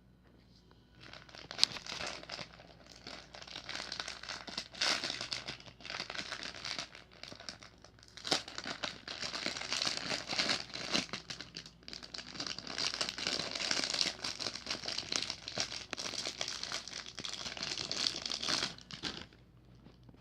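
Wrapping being crinkled and crumpled by hand in a continuous, irregular run of crackles, starting about a second in and stopping shortly before the end.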